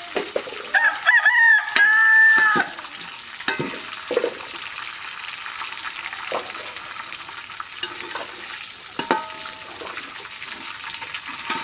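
A rooster crows once, about a second in: a few short notes, then a long held final note. Scattered clicks and knocks and a steady hiss run underneath.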